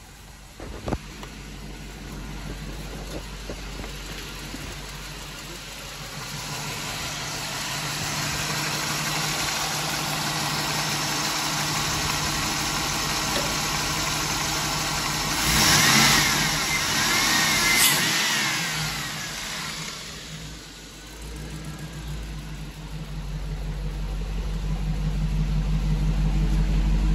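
A 2005 Hummer H2's 6.0-litre LQ4 V8 running at idle. It grows louder and brighter through the middle, loudest for a few seconds just past halfway with a wavering whine, after a short knock about a second in.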